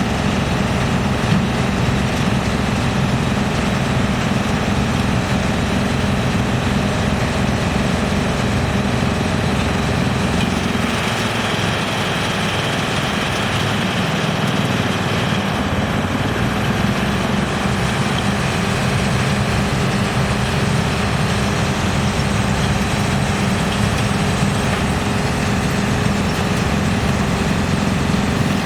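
GX2113 industrial wood chipper running with a steady mechanical drone and hum. For several seconds in the middle the low rumble thins and a higher hissing band comes up, then it settles back.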